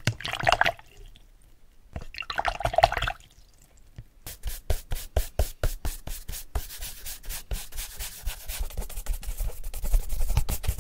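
Paintbrush swished in a plastic cup of water in two short bursts, then fast brush strokes, the bristles scratching and rubbing about five times a second and getting quicker toward the end.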